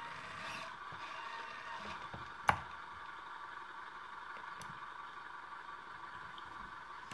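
Radio-controlled model ambulance shifting a short way over a wooden floor and then standing, under a faint steady hum, with one sharp click about two and a half seconds in and a couple of light ticks a little later.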